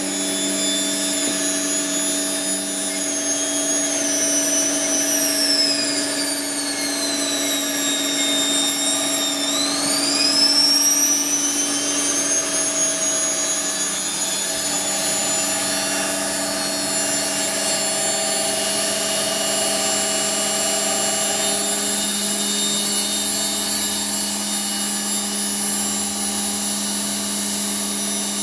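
A 220 V universal motor running off a 110 V DC generator, with a high whine that sags in pitch about eight seconds in and climbs back. Under it is the steady hum of the belt-driven Hodson and Gault generator.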